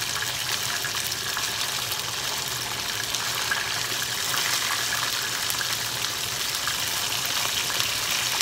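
Hot oil sizzling and crackling steadily around batter-coated chicken wings deep-frying in a pan, as more wings are slipped in with tongs. A low steady hum runs underneath.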